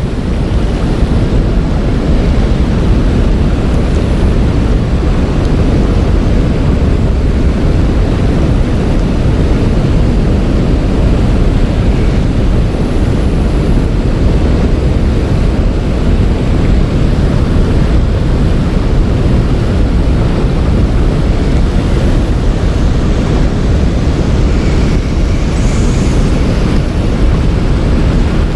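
Steady rushing noise of fast-flowing river current mixed with wind buffeting the microphone, heaviest in the low end and unchanging throughout.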